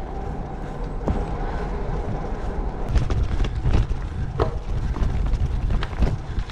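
Bicycle riding along a forest track, with a steady rumble of wind on the microphone and tyre noise. From about three seconds in it gets louder, with frequent crunching clicks and rattles as the tyres roll over gravel.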